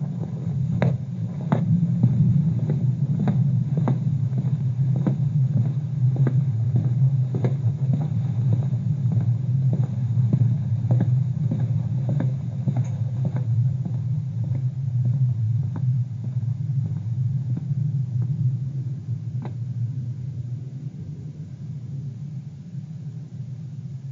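Lo-fi dark ambient outro: a steady low rumbling drone with scattered clicks and knocks that thin out, the whole fading toward the end.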